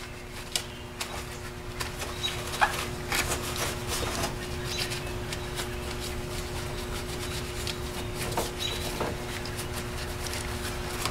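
Blue paper shop towel, wet with glass cleaner, being rubbed and wiped across the plastic top of a car battery: irregular scrubbing strokes with light taps and a few short squeaks, over a faint steady hum.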